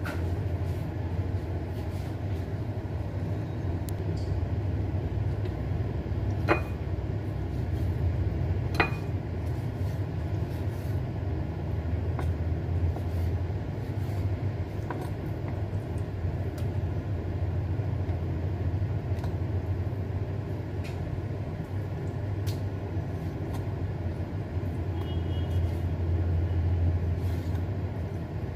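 A steady low hum, with a few sharp clicks of a knife blade striking a wooden cutting board as raw chicken breast is sliced, the clearest about six and a half and nine seconds in.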